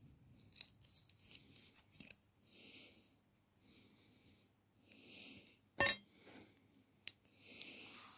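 Hand-work noises on a bassoon reed blank: scratchy rustling of the cane and tools in the first two seconds, then a loud click just before six seconds and a sharper tick about a second later, with soft hissy swells in between.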